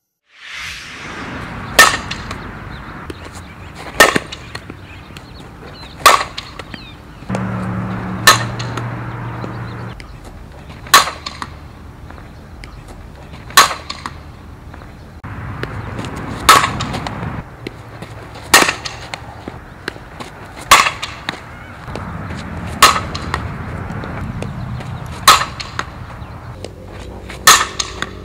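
Softball bat hitting tossed pitches in batting practice: a sharp crack of bat on ball about every two seconds, a dozen times.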